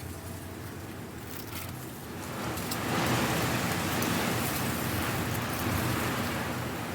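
Strong wind blowing dry leaves about, a rushing rustle that swells into a louder gust about two and a half seconds in and eases a little near the end.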